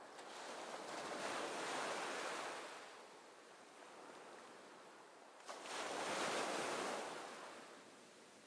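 Sea waves washing: a rushing noise that swells and fades away twice.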